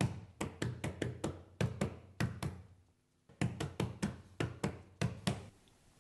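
A quick run of sharp knocks or taps, about five a second, in two runs with a short pause about halfway.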